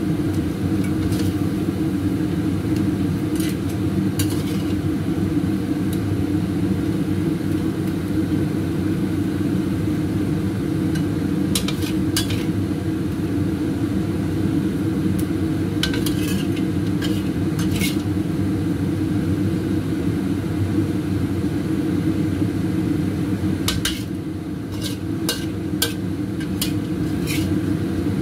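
A metal spatula clinking and scraping against a steel wok now and then as stir-fried crab pieces are scooped out onto a plate, over a steady low rumble.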